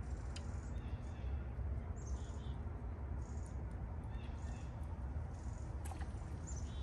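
Small birds calling in short, high chirps every second or so over a steady low rumble, with a few soft clicks from hands working the fishing tackle.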